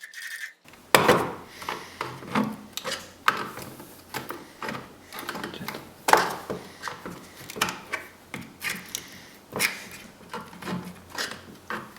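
Irregular clicking, knocking and scraping of tools against the hard plastic housing of a Lexus NX200T door lock actuator as the failed motor is pried out of it, starting about a second in.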